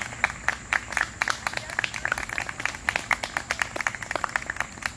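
A small group of people clapping: many separate, uneven hand claps rather than a dense wash of applause.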